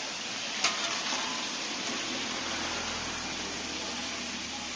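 Tapioca slices deep-frying in a large iron kadai of oil, a steady sizzling hiss. A sharp metallic clink comes about two-thirds of a second in, followed by a few light ticks, as the mesh skimmer knocks against the pan.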